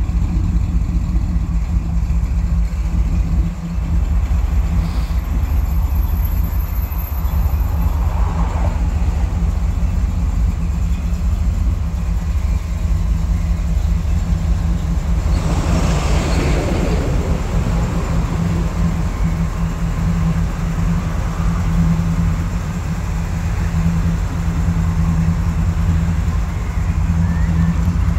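A 1951 Chevrolet 3100 pickup's engine idling steadily, with a brief louder rush of noise about halfway through.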